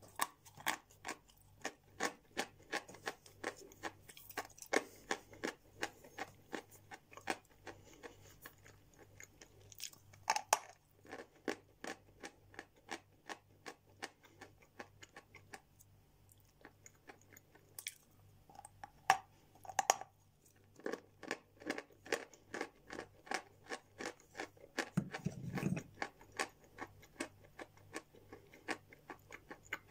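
A person chewing a mouthful of edible natural chalk: a steady run of dry crunches at about three a second, pausing briefly about halfway through.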